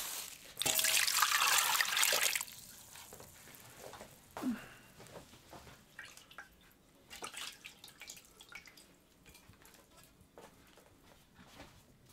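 Water pouring or running for about two seconds, then soft scattered clicks and rustles of dough being worked by hand in a metal bowl.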